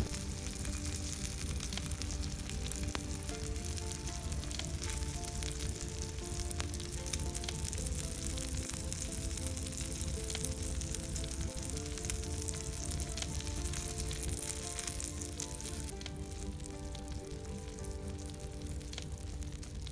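Oil sizzling and spitting in a tiny frying pan as bacon-wrapped rice balls fry, with occasional light clicks of small utensils turning them. The sizzle eases a little near the end. Soft background music with a simple melody plays under it.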